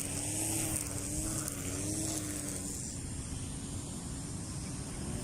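Motorized grass cutter's engine running steadily, its drone wavering slightly in pitch.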